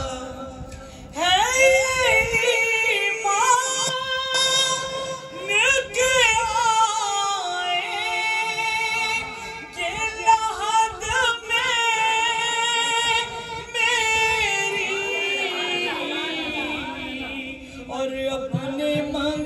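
A woman's voice singing a devotional verse in Urdu, holding long notes with wavering ornaments.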